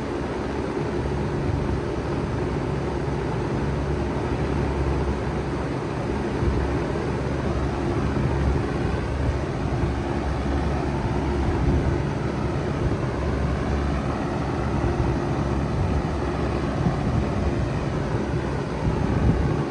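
2006 3-ton Bard wall-hung heat pump running in cooling mode: a steady low hum from the compressor under an even rush of air from the fan.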